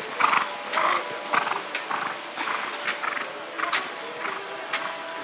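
Hoofbeats of a cantering show-jumping horse on grass turf, a quick run of thuds, loudest in the first couple of seconds and then fainter as the horse moves away.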